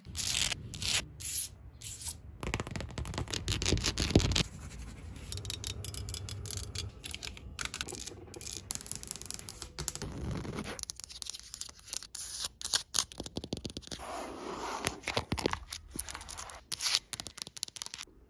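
Fast ASMR triggers close to the microphone: rapid scratching, scraping and tapping on assorted surfaces, with the sound changing to a different set of scratches and taps about eleven seconds in.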